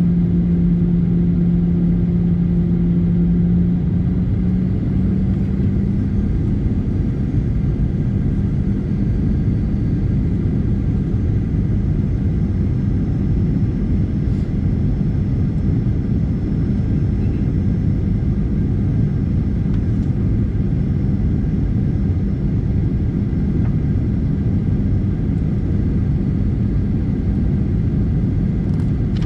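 Jet airliner cabin noise at a window seat in flight: the steady roar of the engines and airflow, with a low engine hum that rises a little in pitch about five seconds in and then sinks into the roar.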